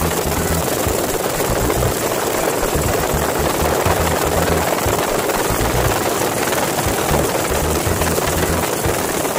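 Helicopter in flight, with steady rotor and turbine noise and wind buffeting through the open doorway of the cabin.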